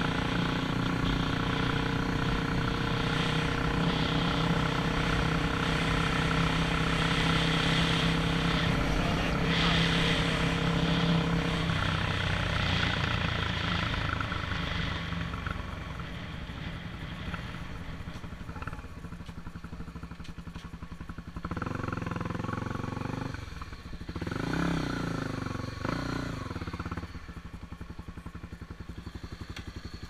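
Honda XRE 300 single-cylinder engine running at a steady cruise, then easing off and getting quieter as the bike slows. It gives a few short bursts of revs about three-quarters of the way through, then settles to a low, steady running as the bike comes to a stop.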